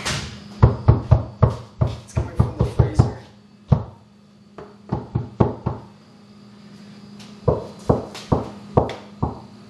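Rapid knocking on a freezer, in three quick runs of knocks with short pauses between them, over a faint steady hum.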